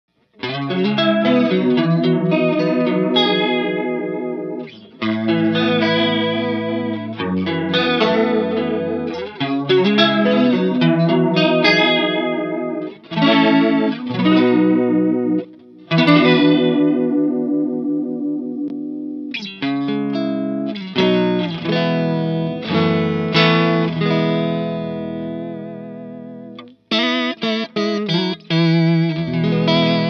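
Electric guitar, a Fender Stratocaster, played through a Native Audio Pretty Bird Woman chorus/vibrato pedal into a Vox AC30 amp. Chords and melodic lines ring out with a few brief gaps. The pitch wavers audibly in the last few seconds as the modulation comes through.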